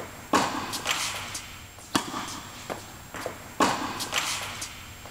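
Tennis balls struck by rackets and bouncing on an indoor hard court. A sharp pop comes roughly every second and a half, with lighter ticks of bounces and footsteps in between.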